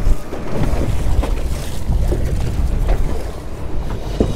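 Strong wind buffeting the microphone and choppy water against a small aluminium boat, a steady low rumble, with a few light knocks.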